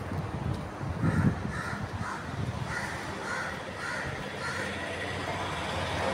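Crows cawing, a run of short repeated calls, over low thumps of walking and the phone being carried, loudest about a second in.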